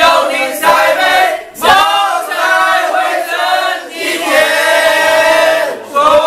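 A group of men singing a Mandarin love song together in loud unison, holding long notes.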